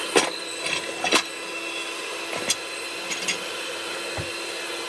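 Electric hand mixer running steadily, its beaters whisking pancake batter in a plastic measuring jug, with a few sharp clicks in the first few seconds.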